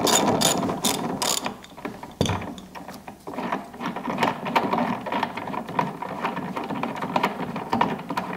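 Half-inch-drive hand ratchet clicking as it backs off the spare-tire lug nuts: a few loud clicks at first, a single knock about two seconds in, then quicker, fainter clicking.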